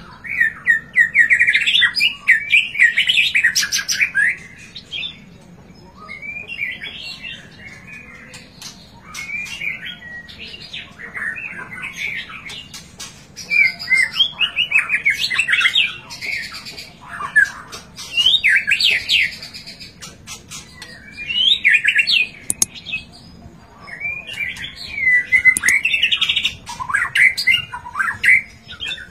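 White-rumped shama singing: repeated phrases of quick, varied whistles and trills, each one to four seconds long, with short pauses between them.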